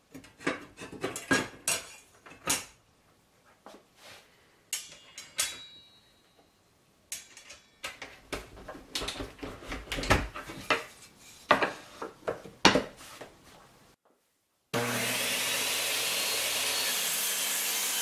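Handling clatter from fitting a saw blade and a wooden throat insert into a table saw: a string of irregular clicks, knocks and rubs. After a short break near the end, the table saw's circular-saw motor starts and runs with a steady loud whir, a faint whine rising as it comes up to speed.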